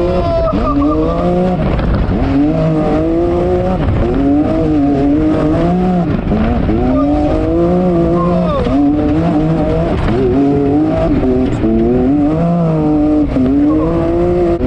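Side-by-side UTV engine heard from inside the cab, revving up and dropping back again and again, about once every second or two, over a steady rush of noise.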